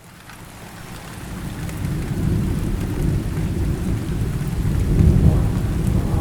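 Steady rain with a long, low rumble of thunder that swells over the first two seconds and is loudest about five seconds in.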